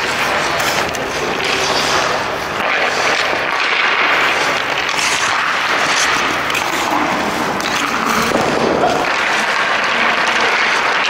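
Ice hockey skates scraping and carving on rink ice under a steady hiss, with sharp cracks of hockey sticks shooting pucks.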